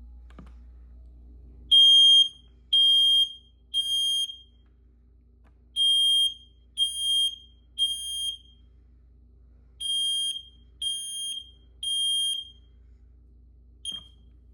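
Smoke alarm being tested, sounding the temporal-three evacuation pattern: three high-pitched beeps, a pause, and the group repeated three times. One short chirp follows near the end.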